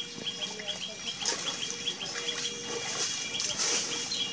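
A bird repeats a short high chirp about four times a second, over the wet squelch and splash of hands working through mud and shallow water.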